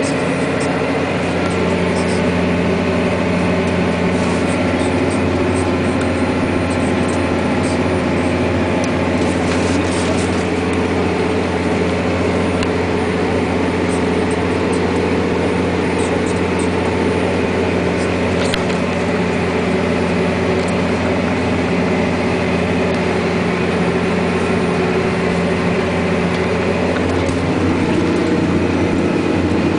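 Massey Ferguson 8480 tractor's diesel engine running steadily under load, heard from inside the cab while it pulls a power harrow and seed drill.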